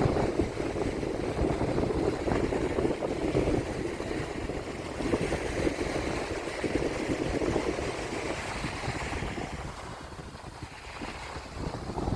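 Wind buffeting the microphone over the wash of surf on the beach, gusting unevenly and easing off briefly about ten seconds in.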